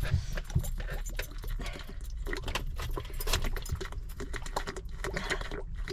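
Handling noise: an irregular, rapid run of small clicks, rattles and rustles, as objects are handled close to the microphone.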